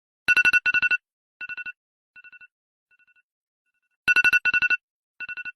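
Telephone ringtone: a trilling double ring that repeats three times, fainter each time like an echo, then starts again loud about four seconds in.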